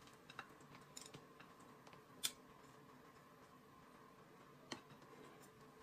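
Near silence: room tone with a few faint, brief clicks, the loudest a little over two seconds in.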